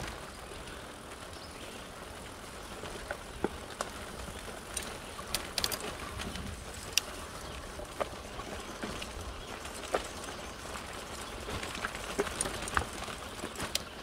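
Fat tires of a recumbent trike crunching slowly over a sandy dirt trail: a steady rolling rustle with scattered, irregular sharp clicks as the wheels pass over small stones and debris.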